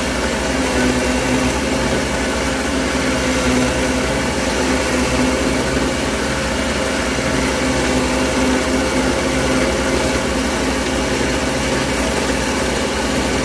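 Taurus 3 ring saw running steadily, a constant motor hum with hiss, as thick dichroic fused glass is pushed into its diamond-plated ring blade to cut it.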